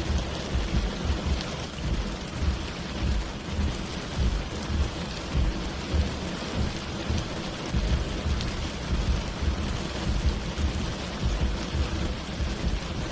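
Rain falling steadily, with a fluctuating low rumble underneath.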